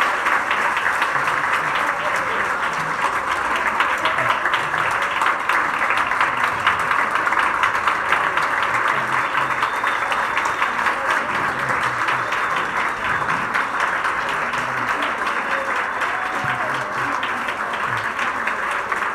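Audience applause: a roomful of people clapping steadily without a break.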